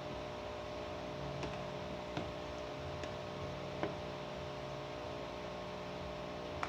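Steady electrical hum with a few faint, light clicks in the first few seconds, from a utensil or the plastic container while mango mixture is spread over the biscuit layer.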